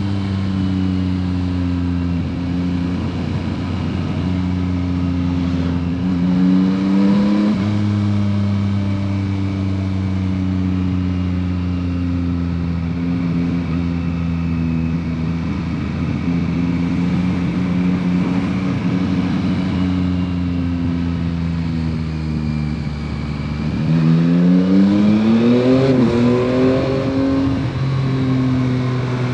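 A 2021 Yamaha MT-09 SP's 890 cc inline three-cylinder engine through its stock exhaust, pulling at a steady cruise with the pitch slowly sagging. Near the end it revs up sharply and louder, then eases back to a steady note.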